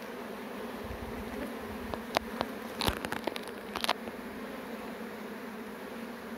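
Honeybees buzzing around an open hive: a steady hum. A few short sharp clicks and knocks come between about two and four seconds in.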